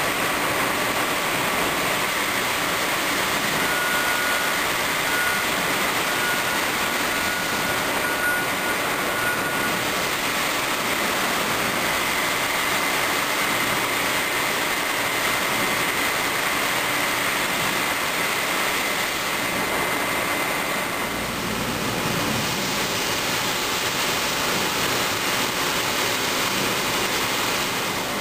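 Höfler 1500 CNC gear grinder running, grinding the teeth of a large gear under a coolant spray: a steady rushing noise with a faint high whine.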